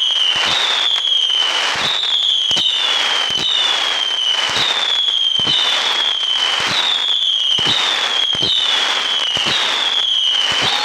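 Fireworks going off in rapid succession. A high whistle sounds roughly every second, each falling slightly in pitch and starting with a sharp bang, over continuous crackling.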